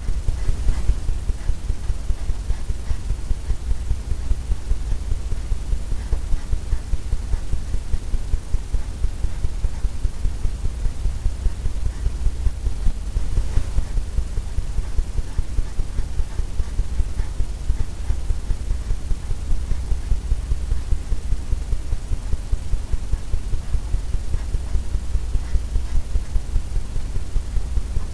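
Steady low rumble with a fast, uneven throb throughout, like a motor or fan running.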